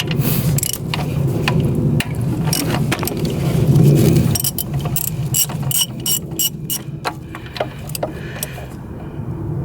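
Ratchet wrench clicking in quick runs while loosening the thermostat housing bolts, over a steady low hum.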